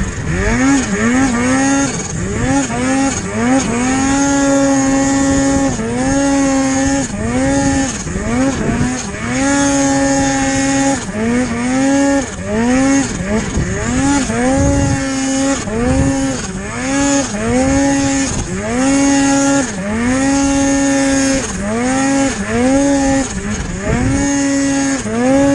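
Turbocharged Polaris snowmobile's two-stroke engine revving hard in deep powder: the revs climb, hold high for a second or two, then drop, again and again with the rider's throttle, some blips short and some held.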